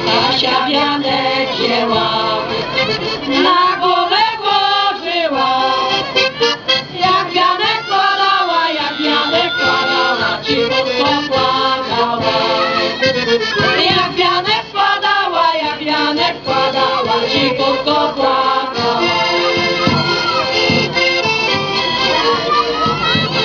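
A women's folk choir singing a Polish folk song in unison over a piano accordion, amplified through a PA. The accordion plays alone at first, and the voices join in about three seconds in.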